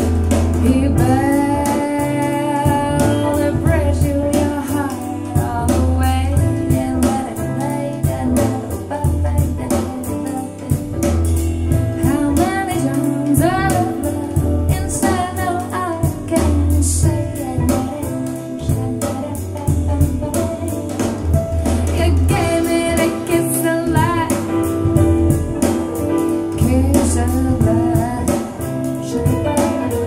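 Recorded song played back through Pioneer TAD S-1EX loudspeakers: a singing voice over guitar, bass and drums, with a steady beat.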